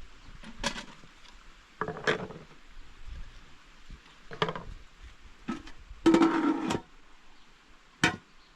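A series of separate sharp knocks, about six across eight seconds, with a longer, louder knock and scrape about six seconds in that rings with a few steady tones.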